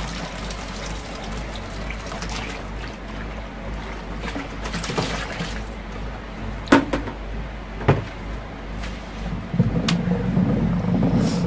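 Soaked soda ash solution pouring from a plastic bucket into a tub of liquid soap mixture, a steady splashing flow with a few sharp knocks in the middle. Near the end the liquid sloshes as it is stirred with a plastic pipe.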